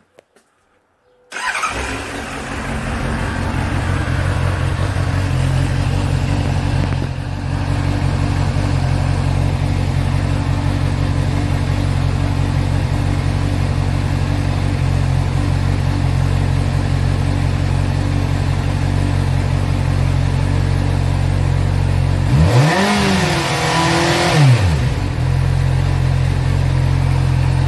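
2013 Honda CBR600F's inline-four engine breathing through its standard stock exhaust: it starts about a second in and idles steadily, then is revved up and back down twice near the end.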